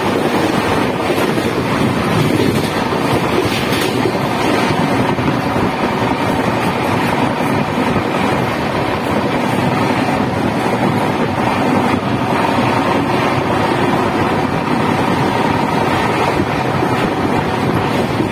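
Express passenger train running at speed, heard from an open coach doorway: a steady rumble of wheels on the rails with wind rushing past the door.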